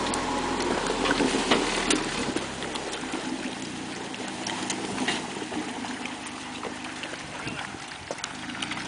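Jeep Wrangler Rubicon's engine running as it pulls away under load, growing fainter after the first couple of seconds, while its tyres and the towed trailer's tyres crunch and slush through packed snow with many scattered crackles and clicks.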